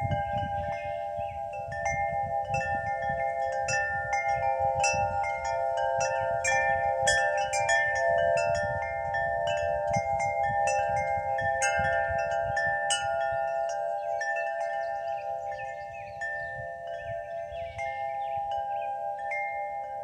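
Wind chimes ringing in a breeze, struck over and over so that their long, sustained tones overlap, with higher notes sounding on top. Low gusts of wind rumble on the microphone, mostly in the first half.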